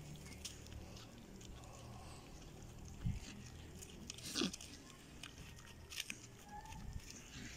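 Domestic pig chewing banana, with a few sharp crunching clicks; the loudest come about three and four and a half seconds in.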